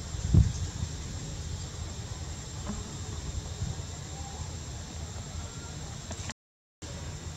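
Outdoor ambience: a low steady rumble with a faint steady high hum, and one dull thump about half a second in. The sound drops out completely for a moment near the end.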